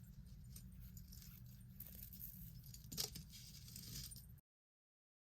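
Faint clinking of metal costume jewelry being handled, with one sharper clink about three seconds in. The sound then cuts out suddenly to dead silence near the end.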